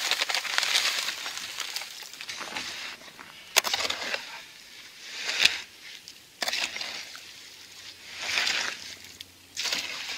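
Dry fast-setting concrete mix pouring from a paper bag into a plastic mixing tub of water with a hissing rush at first. Then a hoe scrapes and slops through the wet mix in the tub in several separate strokes.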